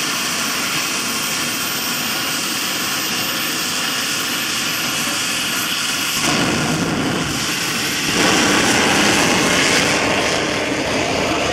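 Rolls-Royce helicopter gas turbine fitted to a quad, running with a steady high whine over a loud rushing exhaust. It grows louder about six seconds in and louder again two seconds later as the quad pulls away.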